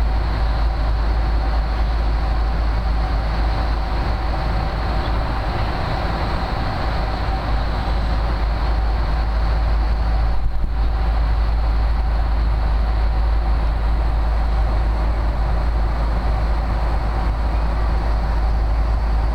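Steady airliner cabin noise in flight: a constant low rumble and rush of air, with faint steady whining tones on top.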